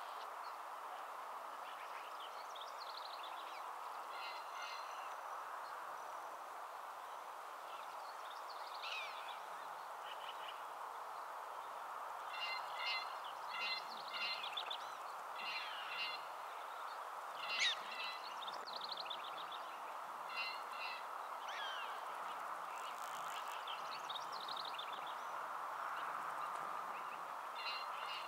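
Groups of short, high chirping calls and whistles from animals, several in quick series, with one sweeping call about two-thirds of the way through standing out as the loudest. Under them runs a steady background hiss.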